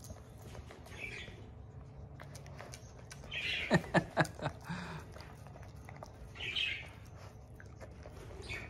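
Chow Chow dog eating from a plate, licking and chewing, with a quick run of sharp clicks about halfway through. Birds chirp faintly now and then.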